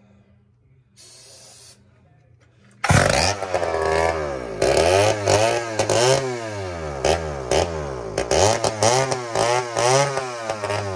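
Poulan S72 two-stroke chainsaw engine catching about three seconds in and running on sprayed starting fluid, revved up and down over and over. It runs only on the fluid: a blocked fuel line keeps fuel from reaching the carburetor.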